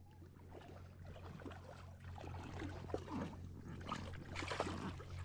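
Faint splashing and trickling of shallow river water stirred by a hooked fish thrashing near the surface, with scattered small clicks and a brief louder splash about four and a half seconds in.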